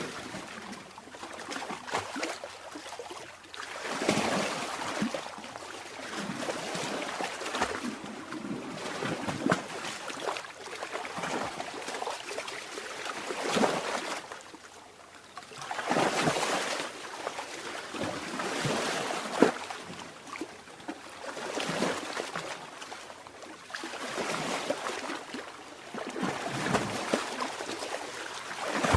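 Sea water lapping and splashing in small waves, with many small splashes and a wash that swells and falls every few seconds.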